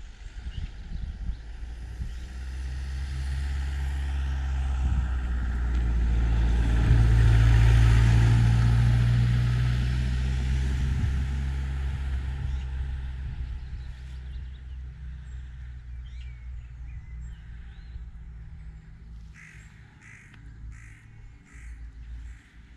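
A motor vehicle's engine drone grows steadily louder, peaks about eight seconds in, then slowly fades away as it passes and moves off. Near the end a crow caws several times in quick succession.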